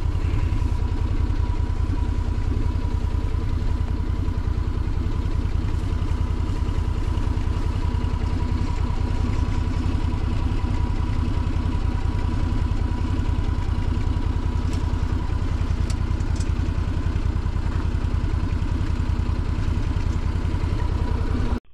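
Side-by-side UTV engine idling steadily, a low even rumble with a faint steady whine over it; it cuts off abruptly near the end.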